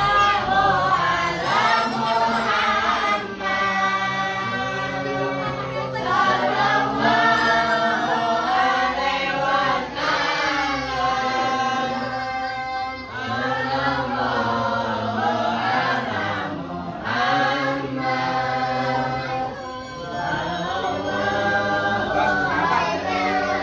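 A group of voices singing sholawat, Islamic devotional praise songs, together in unison, with long held notes and short breaks between phrases.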